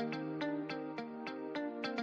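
Background music: a melody of short, evenly paced notes, about three or four a second.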